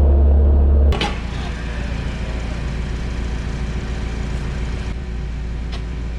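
Skid steer loader's engine running steadily, with a deep hum that changes abruptly about a second in to a noisier, rougher engine sound; a few sharp clicks near the end.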